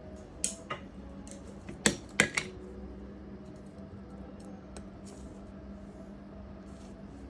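Small metal repair tools clicking and tapping against a phone logic board and the bench. There are a few light clicks early, then two sharp louder taps about two seconds in, over a steady low hum.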